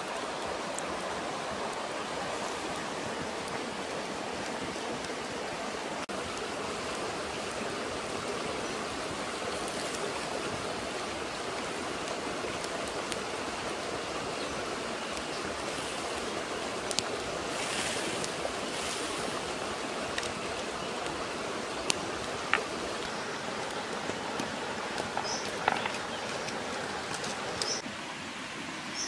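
Steady rush of a shallow rocky stream, with a few short sharp clicks in the second half.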